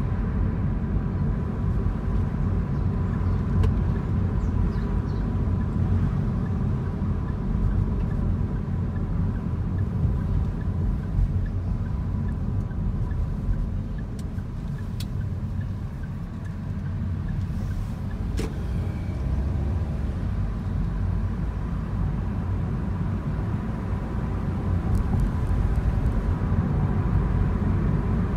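Car driving on city streets: a steady low rumble of engine and road noise, with a faint steady high tone and a few brief sharp ticks.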